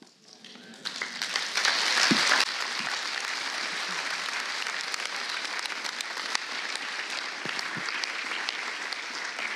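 Congregation applauding: clapping starts about a second in, is loudest around two seconds in, then carries on steadily.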